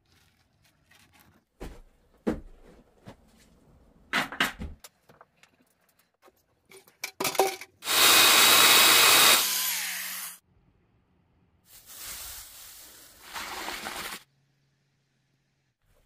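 Scattered knocks and clatter, then a corded electric chainsaw cutting through a log for about two and a half seconds, the loudest sound. A quieter stretch of steady noise follows a little later.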